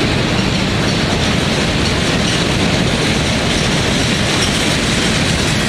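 Mixed freight train of boxcars and hoppers passing close by at speed, its cars and wheels making a loud, steady rumble and clatter on the rails.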